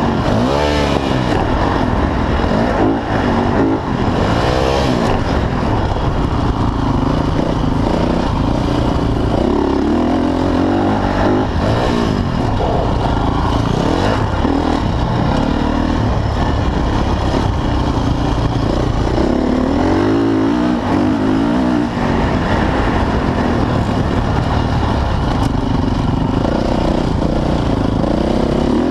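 Motocross dirt bike engine, heard from on the bike itself, revving hard under racing load, its pitch climbing and dropping again and again as the throttle is worked.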